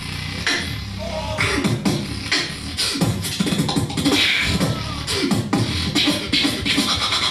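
Solo beatbox performance: a fast, steady beat of vocal kick and snare sounds, with short sliding pitched vocal effects woven between the hits.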